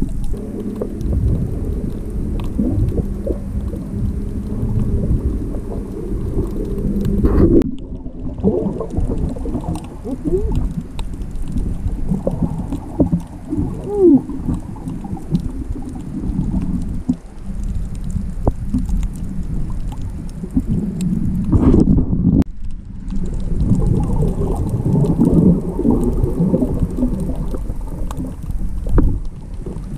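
Muffled underwater sound picked up by an action camera in its waterproof housing: low water noise and the movements of snorkelers swimming and diving close by. It breaks off briefly twice, about a quarter of the way in and about three-quarters in.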